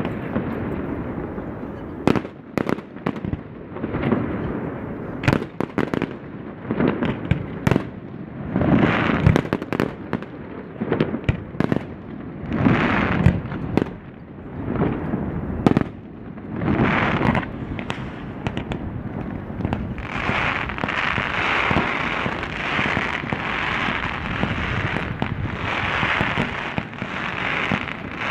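Fireworks display: a rapid, irregular series of sharp bangs from shells bursting overhead, thickening about twenty seconds in into a dense, steady crackle with bangs still breaking through.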